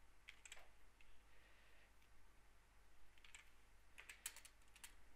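Soft keystrokes on a computer keyboard: a few clicks near the start, then a quicker cluster in the last couple of seconds.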